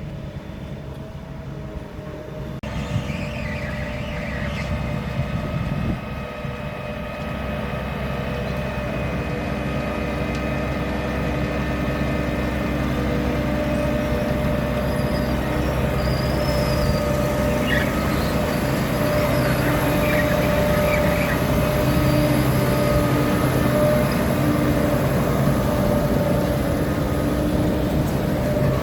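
Grimme Varitron 270 potato harvester working: a steady machine drone of engine and running gear with several held tones, which changes abruptly about three seconds in and then grows steadily louder.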